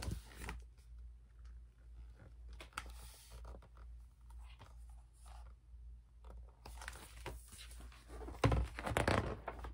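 Faint handling noises of a picture book being held up and moved about: light paper rustles and soft knocks, with a louder burst of rustling and knocking near the end as the book is brought down.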